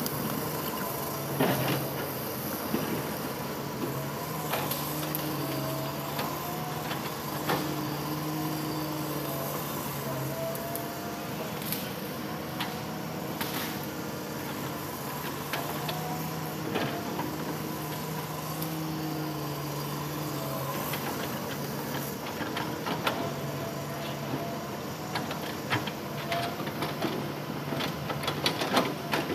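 Hitachi Zaxis 200-5G excavator's diesel engine running steadily, its pitch stepping up and down as the hydraulics take load while the arm swings and digs. Scattered clanks and scrapes of the steel bucket on rock come through, more of them near the end.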